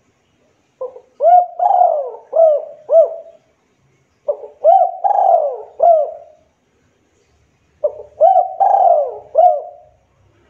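Spotted dove (Javan local derkuku) cooing: three phrases of about five coos each, a few seconds apart.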